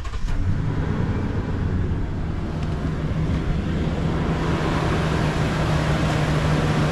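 Toyota Sequoia 5.7-litre V8 just started, catching right at the start and then idling steadily. There is no belt squeal, because a new serpentine belt has just been fitted.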